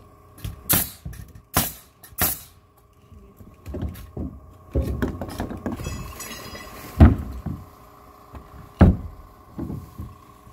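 Pneumatic nail gun driving nails into plywood subfloor sheathing, three sharp shots under a second apart, followed by scraping and a couple of heavy thuds as plywood sheets are handled and set down.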